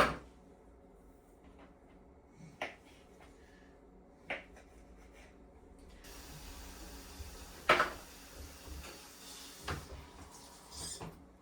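Kitchen clatter of pots and utensils being handled: a handful of separate knocks and clinks, the sharpest at the start and another about three-quarters of the way through, with a steady hiss coming in about halfway.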